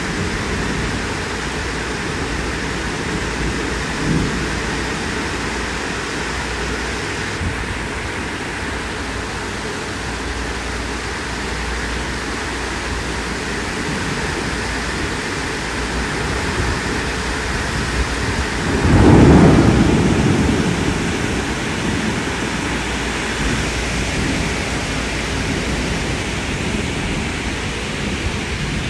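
Steady heavy rain falling through a thunderstorm, with a short low rumble about four seconds in and a louder roll of thunder swelling about two-thirds of the way through, then dying away over a few seconds.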